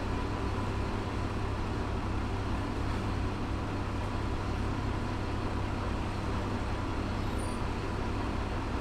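Diesel railcar engine idling steadily while the train stands at a halt, heard from inside the driver's cab, with a low, evenly pulsing hum.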